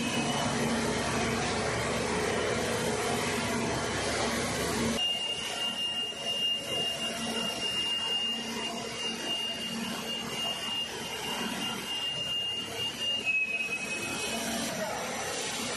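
Rock wool production line machinery running: a steady industrial noise with a constant high-pitched whine, which steps down slightly in pitch near the end. The sound changes abruptly about five seconds in.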